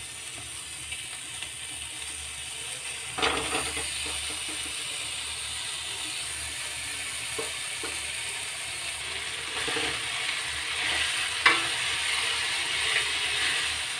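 Khoya warming in a kadhai on low heat, with a faint steady sizzle. There is a sharp knock about three seconds in. Near the end a perforated spatula scrapes and clinks against the pan as the khoya is stirred.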